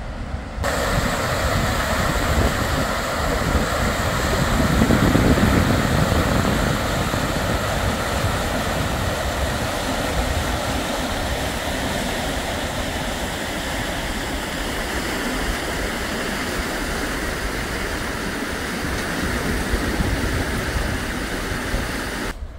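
Floodwater of the swollen Elbe rushing over and past a submerged ferry landing: a steady, loud rush of turbulent water, swelling a little in the low end about five seconds in.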